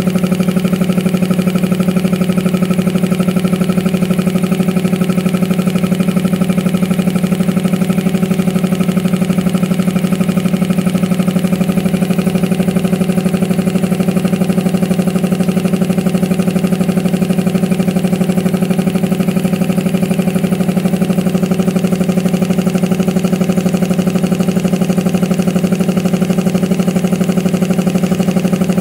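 Electric piston air compressor running steadily under load, with a fast, even pulsing beat, after its auto-cut pressure switch has restarted it. It is pumping the tank back up from about 100 psi toward the 140 psi cut-out set on the switch.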